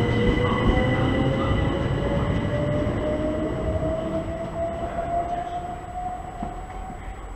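Southern electric multiple unit pulling away: its traction motors give a whine that rises steadily in pitch as it accelerates, over the low rumble of the wheels, and the whole sound fades as the train draws away.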